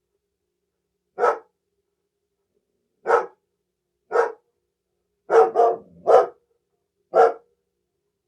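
A dog barking: seven single barks, spaced about a second or two apart, with a quick run of three close together in the middle and clean silence between them.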